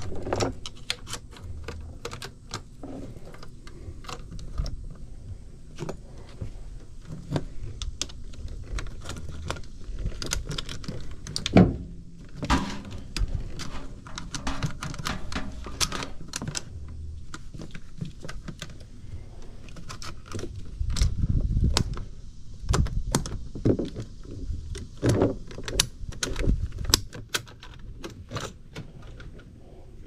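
Gloved hands handling an ECM blower motor and its wiring harness on a metal-and-rubber truck bed: irregular small clicks, clinks and knocks, with a single sharp knock about halfway and a run of heavier thumps in the second half.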